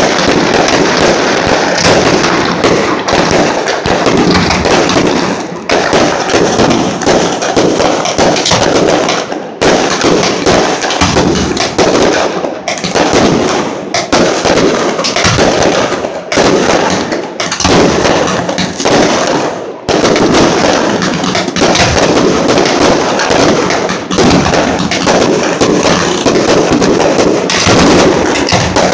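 Fireworks display at close range: a dense, near-continuous barrage of rapid bangs and bursts, loud throughout, with a few brief lulls lasting under a second.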